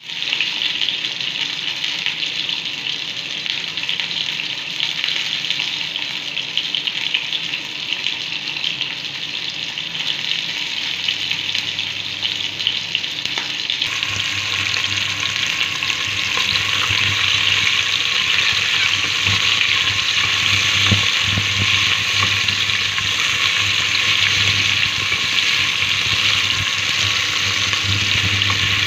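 Hot oil sizzling in a stainless steel pot. From about halfway it gets louder as sliced onion, tomato and garlic fry in it, and a spatula stirs through them near the end.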